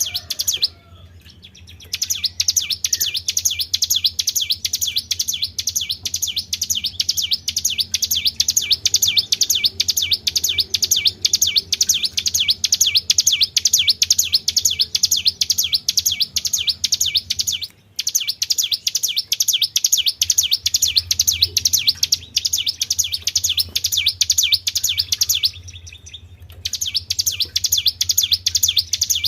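Songbird song in the high 'tribel' style: a long, fast run of sharp, evenly repeated high notes. It stops for about a second near the start and again near the end, with a very brief break in between, over a faint low hum.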